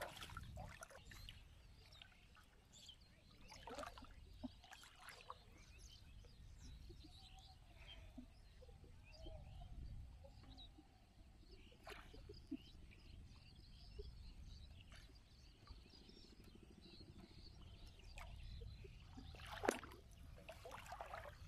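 Faint small splashes and drips of shallow marsh water as hands pull small fish out of a gill net, with a sharper splash near the end, over a low rumble.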